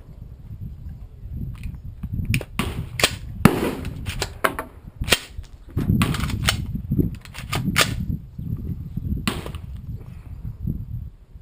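An AR-15 rifle being worked by hand to clear a stoppage: an irregular series of sharp metallic clicks and clacks, loudest about three and a half and nine seconds in, over a low wind rumble on the microphone.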